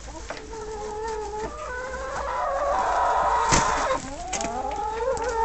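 Domestic hens calling with long, drawn-out notes that waver up and down, more than one at a time, with a single sharp knock about three and a half seconds in.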